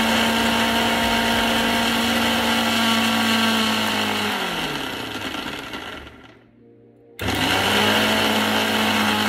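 Electric mixer-grinder (mixie) coarse-grinding soaked chana dal in pulses for vadai batter. The motor runs steadily, is switched off about four seconds in and winds down with falling pitch, then starts again about seven seconds in with a quick rising whine back to full speed.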